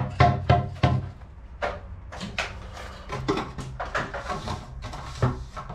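Black plastic drain pipe knocking against the concrete and ground as it is handled and set into a trench in the floor: a quick run of knocks in the first second, then scattered knocks.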